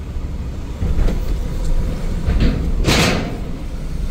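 Delivery van's engine and road rumble as it drives slowly, with a short hissing rush about three seconds in.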